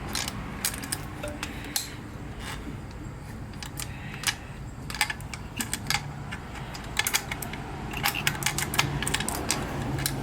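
Light metallic clicks and clinks from hand tools and metal parts being worked against a motorcycle's carburetors. They come irregularly, some alone and some in quick clusters.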